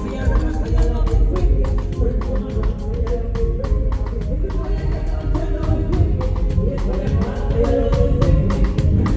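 Live band music during a sound check: drum kit keeping a steady beat under sustained instrument notes, with some singing.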